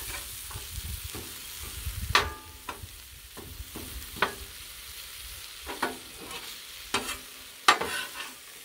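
Frozen diced broccoli and carrots sizzling on a Blackstone steel flat-top griddle while a metal spatula chops and scrapes through them. Several sharp clacks of the spatula against the griddle plate are spread through the sizzle, the loudest near the end.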